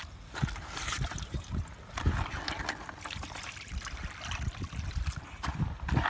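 Water sloshing and splashing in a bucket as a gloved hand stirs through a catch of moon snails, the shells clicking against each other.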